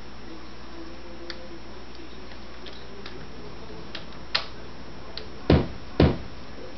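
Small, scattered clicks of a small screwdriver and screws working the laptop's screen bracket, then two sharp knocks about half a second apart near the end, the loudest sounds here.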